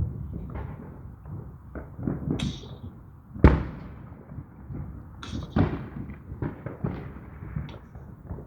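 Fireworks going off: a string of sharp bangs and thuds, the loudest about three and a half seconds in.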